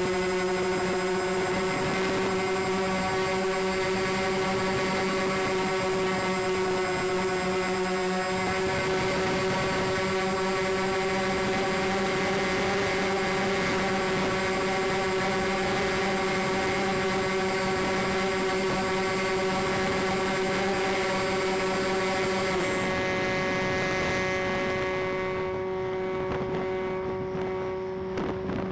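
A model C-124 Globemaster's motors and propellers droning steadily in flight, heard from a camera on the wing. Several close pitches beat against each other. Near the end the hiss thins and the sound eases a little, as the power is brought back while the model banks toward the field.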